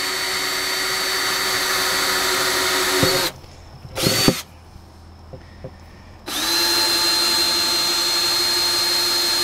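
Cordless drill with a half-inch bit boring drain holes through the bottom of a plastic five-gallon bucket. The motor runs with a steady whine that stops about three seconds in, gives a short burst about a second later, then runs steadily again from about six seconds in.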